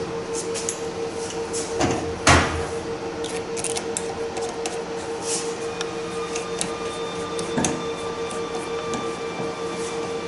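Metal tools and injector parts being handled on a steel workbench: small clicks and clanks, with one sharp metallic knock about two seconds in and a lighter one later, over a steady hum.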